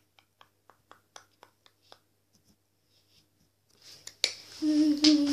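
Soft clicks, about four a second, for the first two seconds, then a short quiet. Near the end, a sharp click and then a boy's wordless vocal tone, held and then sliding down in pitch.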